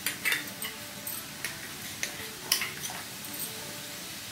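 Salted water heating in a non-stick pan on the stove with soaked chana dal in it: a low steady hiss broken by about half a dozen irregular sharp clicks and ticks, the loudest about two and a half seconds in.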